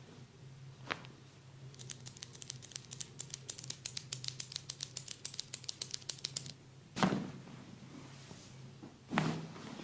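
Rapid light tapping on the forehead during a head massage, about ten quick taps a second for several seconds, followed by two louder rubbing strokes.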